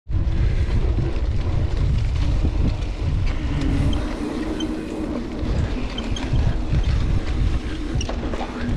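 Wind buffeting the microphone over the rumble and rattle of a mountain bike riding along a trail, with scattered small clicks and ticks.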